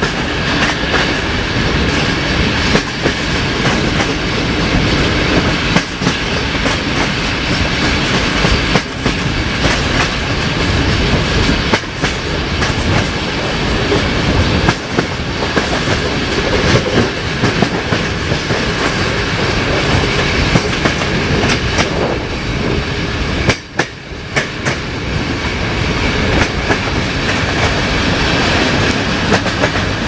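Passenger train wheels rolling on the track, heard from an open carriage window: a loud, steady rolling rumble broken by sharp clicks a second or a few seconds apart as the wheels cross rail joints.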